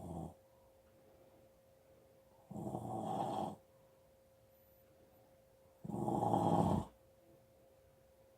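Steady rhythmic snoring: two full snores, each lasting about a second and spaced about three and a half seconds apart, with the end of another one just at the start.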